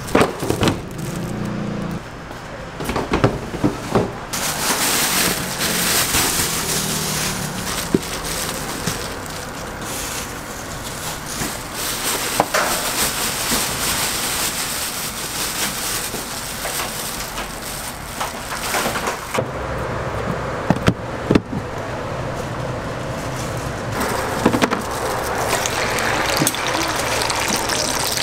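Kitchen food-prep noises: plastic bags rustling and crates being handled, with scattered knocks and clatter over a steady background noise.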